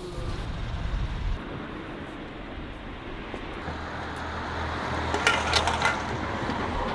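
A few sharp metallic clinks of brass pots and metal bowls being handled and set down on a street-food cart's wooden counter, about five seconds in, over a steady low hum.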